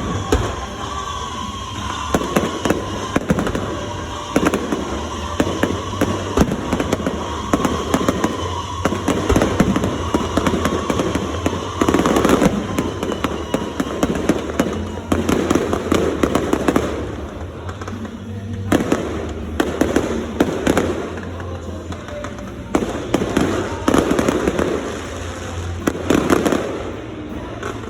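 Fireworks going off repeatedly, sharp bangs and crackles coming in clusters, with music playing underneath.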